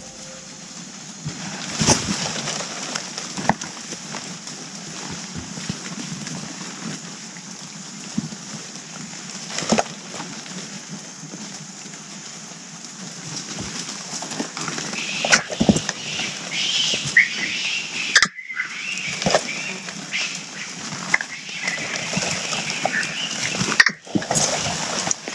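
Rainforest-floor ambience as a troop of agile mangabeys gathers: a steady high hiss with scattered sharp snaps and knocks in the leaf litter and branches. From about halfway, many short high chirping calls come thick and fast.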